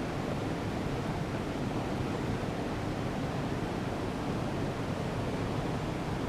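Steady rushing background noise with no distinct clicks, knocks or tones.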